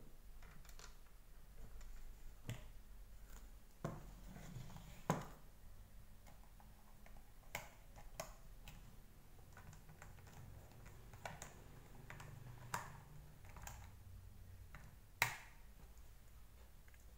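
Light handling clicks and knocks of a hard plastic vacuum brush-head housing and small tools on a wooden table, as the head is turned over during reassembly. There are about ten sharp taps at irregular intervals, the loudest about five seconds in and near the end.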